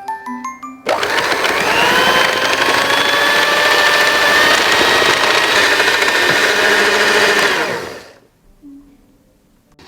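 Small electric kitchen appliance motor switching on about a second in, its whine rising briefly as it gets up to speed, then running steadily for about seven seconds before switching off. Light background music plays before and after it.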